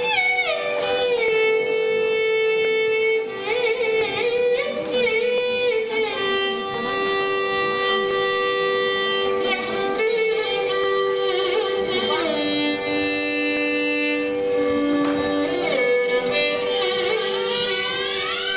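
Carnatic classical music in raga Hamsadhwani: melodic instruments play slow held notes that slide between pitches.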